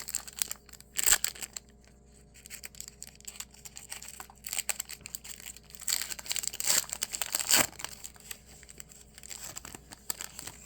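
A trading card pack's wrapper being torn open and crinkled in irregular bursts, loudest about a second in and again between about six and seven and a half seconds.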